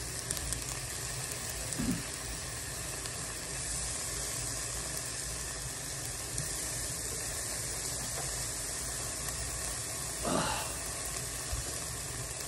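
Beef tongue sizzling steadily as it grills, with a short louder sound about ten seconds in.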